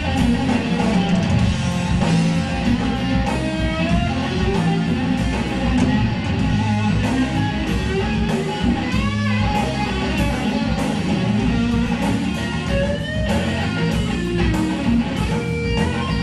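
Live blues-rock trio playing loud: a Stratocaster-style electric guitar plays lead lines with bent notes over bass guitar and a drum kit with steady cymbal and drum hits.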